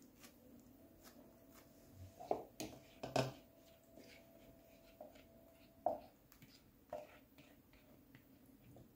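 Faint kitchen handling sounds: a handful of light knocks and taps as a flour tortilla is pressed into a glass pie dish and a bowl and sauce bottle are picked up and set down. The loudest knocks come about two to three seconds in and again around six and seven seconds in.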